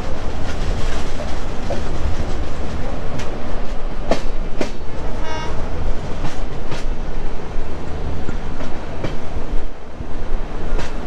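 Moving passenger train: the wheels clatter over the rail joints against a steady low rumble. A short high-pitched pulsed sound comes about five seconds in.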